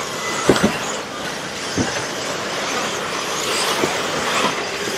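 Several 1/10-scale electric 4WD off-road RC buggies racing on a dirt track: a steady high-pitched whine of motors and drivetrains mixed with tyre noise. A few sharp knocks stand out over it.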